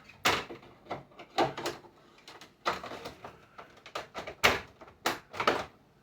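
A run of about a dozen irregular knocks and clatters, like hard parts being handled and set down, with short quiet gaps between them.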